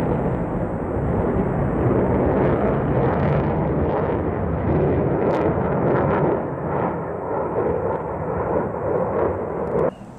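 Lockheed Martin F-22 Raptor's twin F119 afterburning turbofans roaring as it flies past, a loud rumbling jet noise with some crackle that cuts off suddenly near the end.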